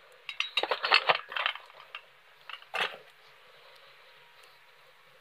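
Metal clinking and rattling as a Superkalan gas-stove burner top unit is handled and lifted out of its cardboard box: a quick cluster of clinks in the first second and a half, and one more clink a little under three seconds in.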